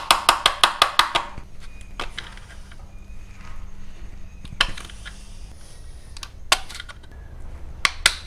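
Hand tool clicking and snapping against the tabs inside a plastic motorcycle headlight bucket as they are broken off: a quick run of sharp clicks in the first second, then a few single snaps spread out.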